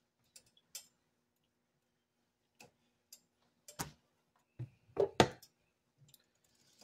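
Scattered kitchen clicks and knocks, with a couple of louder thumps about five seconds in, over a faint steady hum.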